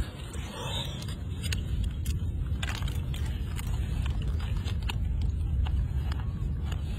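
Low steady rumble with scattered light clicks and scrapes of a live crab being held in the hands and its claws tied up.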